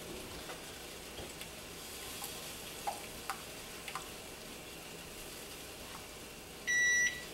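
A whisk stirring cheese sauce in an enamelled cast-iron pot: a soft steady scraping with a few light taps of the whisk against the pot. Near the end an appliance timer sounds one long, high, steady beep, signalling that the cauliflower's steaming time is up.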